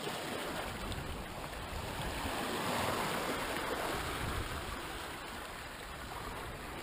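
Sea waves washing and surging against rocks, swelling about three seconds in and then easing off.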